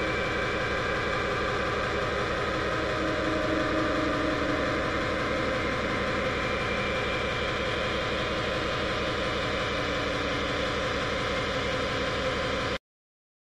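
Speedcore track: a dense wall of distorted, noisy electronic sound over a very fast kick-drum pulse, cutting off abruptly into silence near the end.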